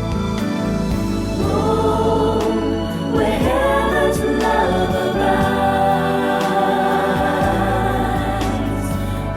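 Christian worship song: voices singing long held notes over steady instrumental accompaniment.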